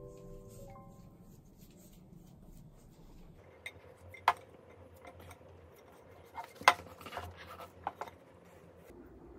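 Dough being kneaded by hand in a stainless steel mixing bowl, with a few sharp metallic knocks and clinks of the bowl, the loudest a little over four seconds in and again near seven seconds. A short music cue dies away in the first second.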